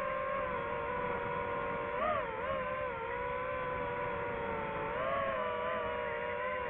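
DJI FPV drone's motors and propellers whining, the pitch wavering as the throttle changes, with a quick rise and fall about two seconds in.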